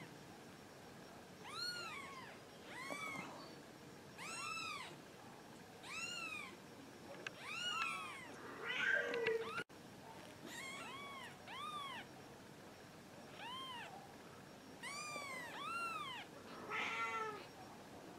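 Nine-day-old Persian kittens mewing over and over: thin, high cries that rise and fall in pitch, about one every second or two, with a couple of rougher, harsher cries among them.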